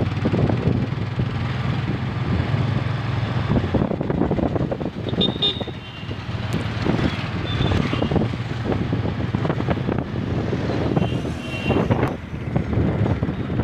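Motorcycle engine running at a steady cruise, heard from the rider's seat, with town traffic around it.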